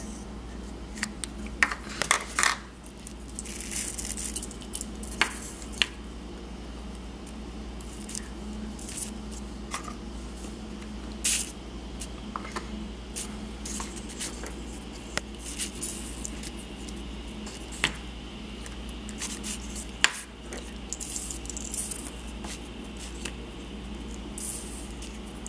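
Glitter shaken and tapped out of a plastic container onto a shell on paper, then pressed down with fingers: scattered sharp taps and clicks with a few short stretches of soft rustling.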